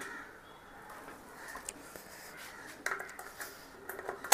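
Faint metallic clicks and rattles of a key going into and turning in the locking filler cap of a Royal Enfield fuel tank, with a sharper click near the end.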